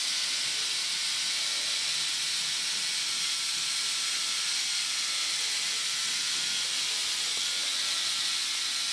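K'nex ball machine's motorised chain lift and needle lift running together: a steady mechanical whirring hiss.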